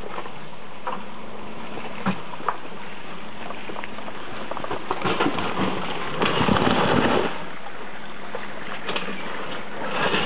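Jeep Wrangler crawling slowly over rocks, its engine running steadily under a noisy hiss, with a few short knocks of tyres and rocks. A louder scuffing noise rises for a couple of seconds about six seconds in.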